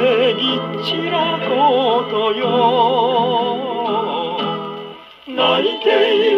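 A 1959 Japanese popular song playing from a 78 rpm shellac record on a Columbia G-241 portable gramophone, heard through its acoustic soundbox. A lead melody with wide vibrato runs over steady accompaniment, with a short drop in level about five seconds in before the music comes back.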